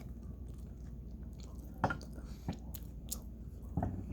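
A person chewing a mouthful of Big Mac burger, with a few sharp wet mouth clicks, the loudest about two seconds in and near the end, over a steady low hum.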